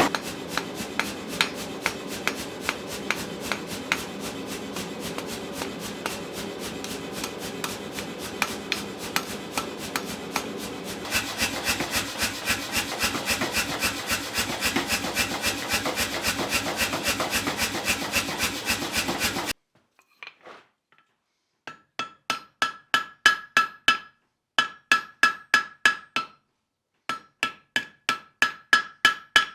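For most of the stretch there is a fast, continuous rasping or scraping of metal strokes. After a short pause, a hammer strikes hot steel on the anvil in quick runs of blows, several a second, each blow ringing with a clear anvil tone, as the stem is drawn out.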